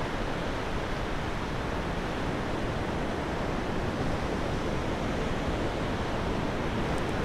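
Steady wash of surf on the beach: an even, unbroken hiss with no distinct events.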